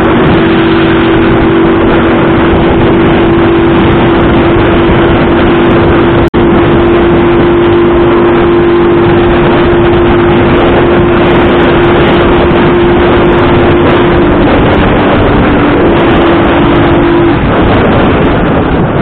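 Motorcycle engine running at a steady cruise under heavy wind rush on the microphone, its steady hum dropping out near the end. There is a momentary cut in the sound about a third of the way in.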